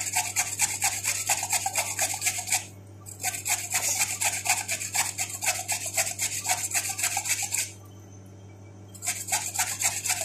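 Carrot being grated on a flat metal hand grater: quick back-and-forth rasping strokes in three runs, with a short break about a third of the way in and a longer one near the end.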